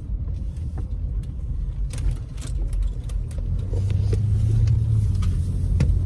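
Road and engine rumble inside a moving car's cabin: a steady low drone that grows louder about two-thirds of the way through, with a few light clicks and rustles.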